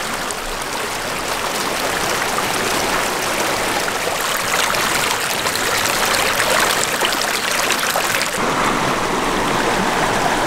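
Shallow river water rushing and babbling over rocks, a steady, even wash of sound. About eight seconds in it changes to a lower, fuller rush.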